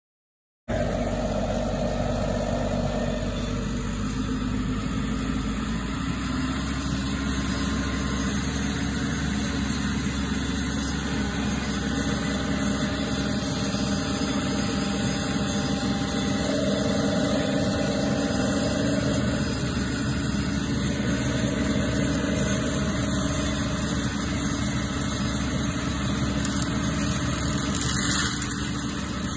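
Seppi RC 50 remote-controlled tracked mulcher's engine running steadily, cutting in suddenly after a moment of silence.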